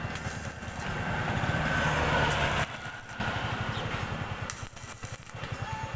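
A small engine idling with a fast, even putter. From about a second in, a louder hiss rises over it and cuts off after another second and a half.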